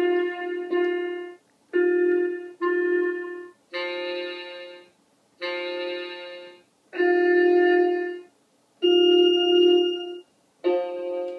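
Toy electronic keyboard played one key at a time: about nine single notes, each held for around a second and cutting off sharply, with short gaps between them.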